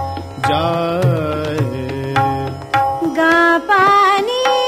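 Hindustani classical vocal music in Raag Hamsadhwani: a voice sings a melodic alap and taan passage of held notes and quick ornamented runs, with tabla accompaniment.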